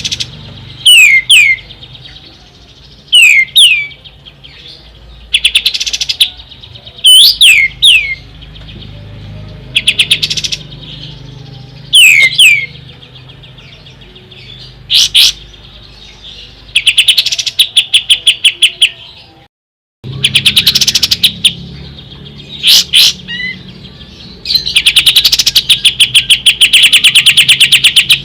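Kapas tembak songbird singing: short phrases of sharp, falling whistles alternating with fast rattling trills, the longest trill near the end. A faint low hum runs underneath, and the sound drops out for a moment about two-thirds of the way through.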